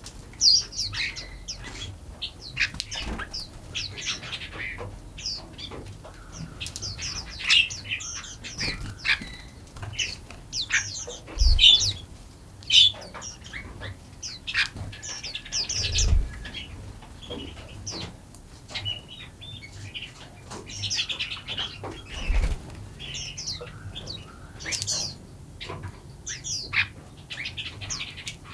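Several small songbirds chirping and calling in quick, short, overlapping high notes, with a few low thumps now and then.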